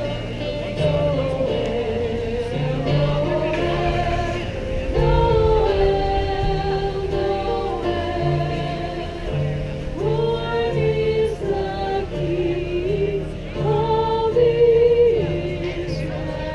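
A small group of women singing together in harmony over a keyboard accompaniment that holds low sustained notes.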